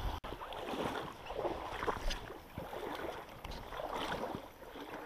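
River water gurgling and splashing over rocks in an uneven, shifting flow.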